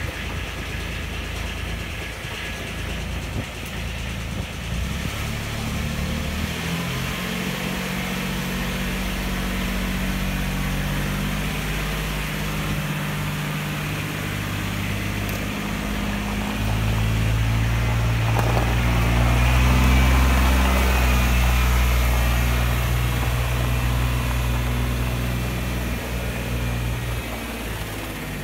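Kubota RTV900 utility vehicle's three-cylinder diesel engine running while it drives, its pitch shifting up and down and loudest about two-thirds of the way through.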